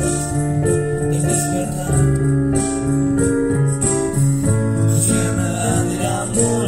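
Music: an original song with held sung notes over an instrumental backing.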